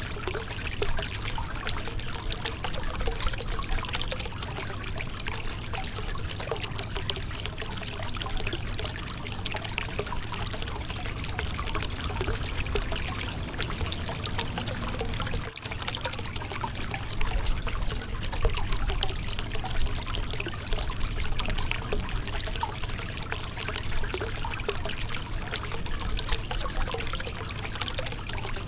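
Shallow river water running and splashing over a rocky bed, a steady babble of many small splashes, with a momentary drop in level about halfway through.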